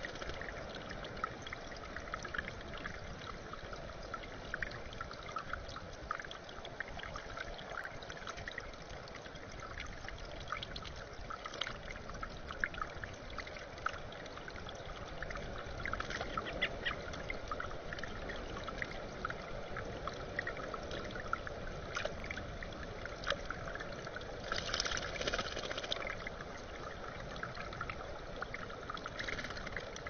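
Water trickling and splashing in a rock bird bath, with short, louder bouts of splashing as a blue jay bathes, one at the very start and another some five seconds before the end.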